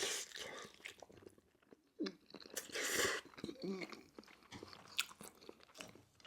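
Close-miked chewing of food: intermittent crunches, clicks and wet mouth sounds, with short hissy bursts near the start and around three seconds in.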